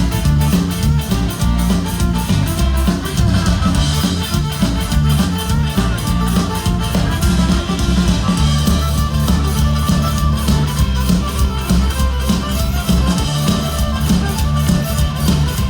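Folk-punk band playing live: an instrumental break with drum kit keeping a steady, fast beat under bass, electric guitar and fiddle, with no singing.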